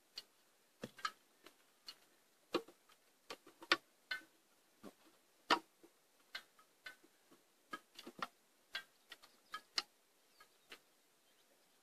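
Irregular sharp clicks and light taps, two or three a second and uneven in strength, some with a brief ringing tone.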